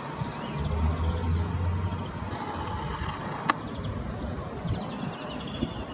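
Outdoor background with a low engine rumble that fades after about two seconds, and one sharp click about three and a half seconds in.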